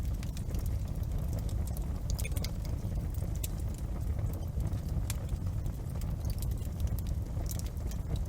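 Fireplace fire crackling: a steady low rumble with irregular sharp pops and snaps scattered throughout.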